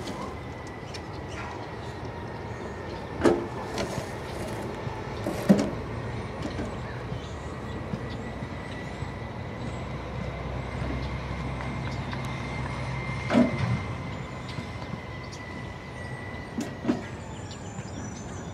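Garbage truck's engine running steadily with a thin, steady whine, broken by four loud clunks spaced over the stretch.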